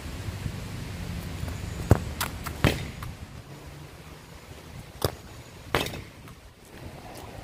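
Football being kicked: several sharp thuds, two close together about two seconds in and two more around five seconds in, over a low wind rumble.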